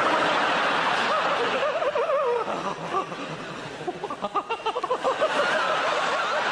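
Live theatre audience laughing, with a man's warbling, wavering vocal noises over the laughter.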